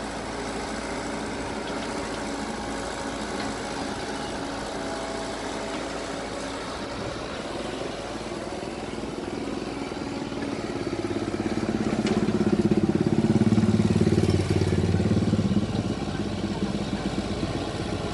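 Komatsu PC78US excavator's diesel engine running steadily while working, loading soil. It grows louder from about ten seconds in to a peak a few seconds later as the machine works harder, then eases back.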